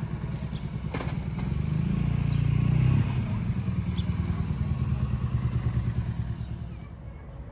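Motorcycle engine idling with a rapid low pulsing, growing louder over the first three seconds, then easing back and fading near the end.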